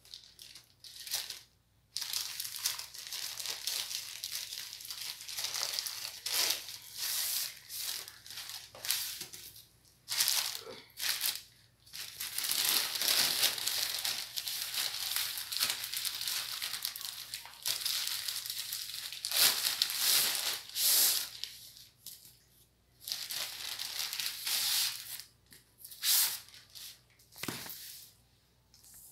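Plastic courier mailer bags crinkling, rustling and tearing as parcels are opened by hand, in irregular bursts with short pauses between them.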